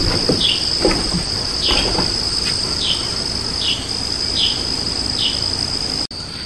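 Summer insect chorus: a steady high-pitched drone with a short falling chirp repeating about every three quarters of a second, over a low rumble.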